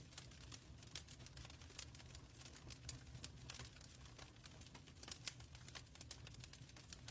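Fireplace fire crackling, with irregular sharp pops over a soft steady low rumble.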